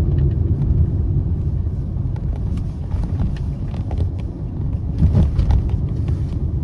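Car cabin noise while driving: a steady low rumble of engine and tyres on the road, with a few faint ticks.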